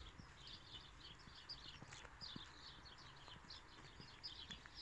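Faint birdsong: many small birds chirping, their short calls overlapping.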